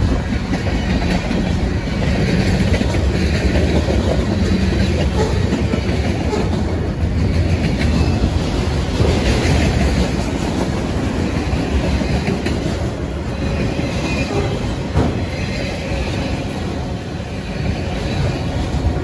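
Freight train of tank cars, boxcars and autorack cars rolling past close by, steel wheels running steadily and loudly over the rails.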